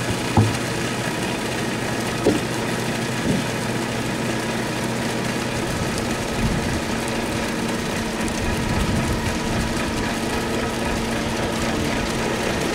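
Concrete mixer truck's engine running steadily with a low hum while wet concrete runs down its chute into the slab formwork, with three short knocks in the first few seconds.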